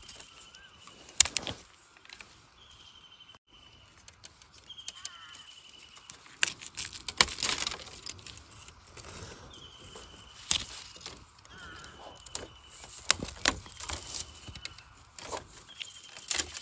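Dry bamboo leaves and twigs crunching and snapping in sharp, irregular crackles as someone pushes through a dry, burnt bamboo clump. Behind them a bird repeats a short buzzy call every second or two.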